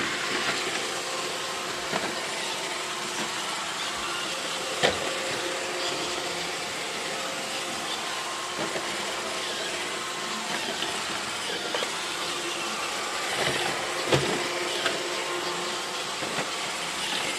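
iRobot Roomba robot vacuum running: a steady whirring hum of its motor and brushes, with two sharp knocks, the first about five seconds in and the second near the end.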